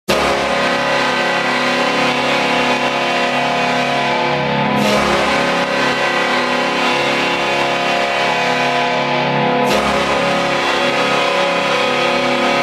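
Utah Mammoth hockey goal horn sounding one long, steady multi-tone blast, the signal of a goal scored. There is a slight break in it about five and ten seconds in.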